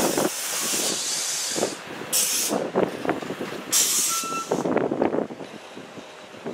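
Air brakes on an NJ Transit train hissing in three short, sharp bursts of released air, with clunks and rumbling from the train between them.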